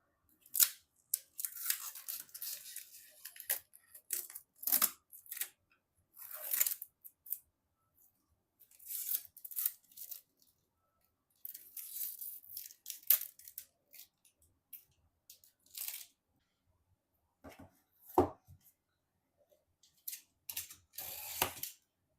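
Packaging for computer parts being torn open and handled by hand: irregular bursts of tearing and rustling, with a few sharp knocks.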